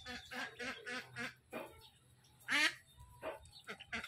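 Duck quacking: a quick run of short quacks, a brief pause, then one loud quack about two and a half seconds in, followed by a few more short quacks near the end.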